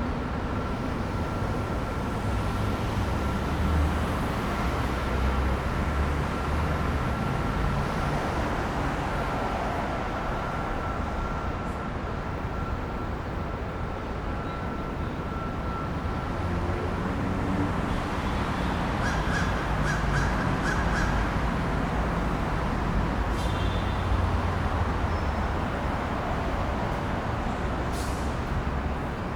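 Downtown city street ambience: a steady wash of traffic with low engine rumble that swells and fades as vehicles pass, and a faint steady whine through the first half. About nineteen seconds in comes a quick run of short, harsh repeated calls or chirps.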